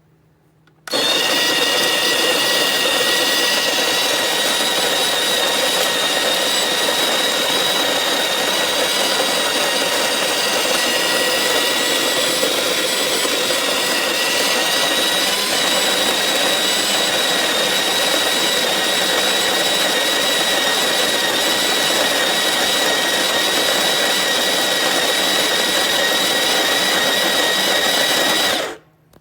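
Electric conical burr coffee grinder running, switching on about a second in and stopping shortly before the end: a loud, steady whine over a rough, even noise.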